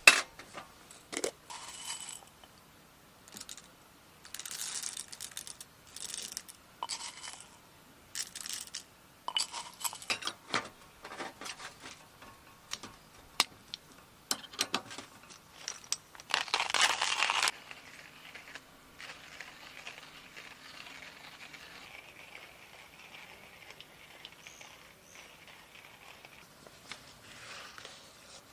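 Small objects being handled up close: a string of sharp clicks and clinks with short bursts of rustling, then a louder hiss about two-thirds of the way in, followed by a faint steady hiss.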